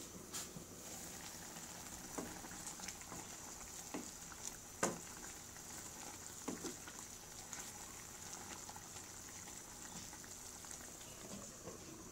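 Chicken adobo simmering in its sauce in a frying pan, a steady bubbling sizzle. Several knocks and scrapes, the loudest about five seconds in, come from the glass lid being lifted and a wooden spatula stirring the chicken against the pan.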